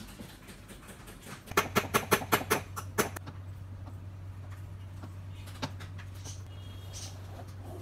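A quick run of about ten sharp knocks on wood, several a second, as a wooden frame of wooden strips is put together by hand, followed by a single knock a few seconds later. A steady low hum runs underneath from the first knock on.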